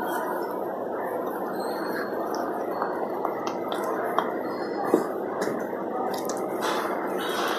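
Supermarket shop-floor background noise, a steady hiss with two short clicks about four and five seconds in.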